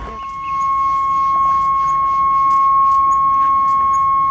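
A long, loud, steady high tone that holds one pitch without wavering, like an electronic beep or alarm. A few faint clicks lie under it.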